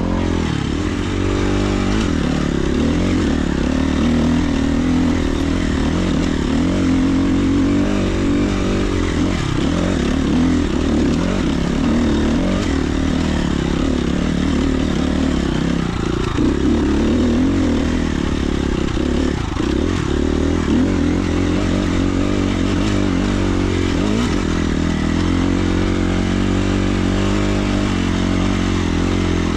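Dirt bike engine running steadily while being ridden along a trail, its pitch rising and falling as the throttle is opened and closed.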